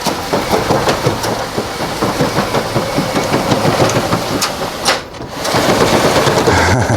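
Metal rain shutters (amado) being slid open along their track, a continuous rattling rumble that dips briefly about five seconds in, then runs on as the next panel slides.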